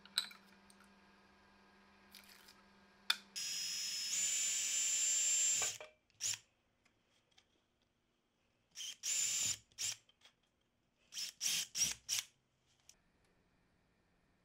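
Cordless drill with a twist bit drilling small holes in a 3D-printed plastic ring. It runs at high speed for about two and a half seconds with a high whine, then in a string of short trigger bursts near the end. A sharp click comes just before the first run.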